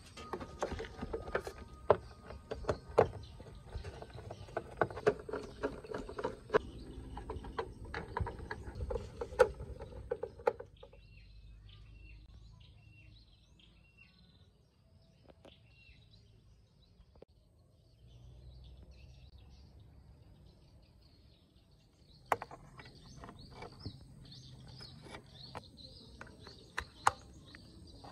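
A run of sharp clicks and knocks from hands handling the plastic cabinet of a 21-inch LG CRT television, lasting about ten seconds. Then birds chirp, with a short high call repeated several times, and more clicks and chirps come near the end.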